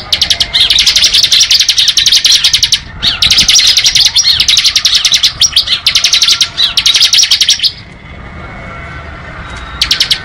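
Bar-winged prinia (ciblek) singing its rapid rattling 'ngebren' trill: long runs of fast, sharp repeated notes with brief breaks, then a pause after about eight seconds and a short burst near the end.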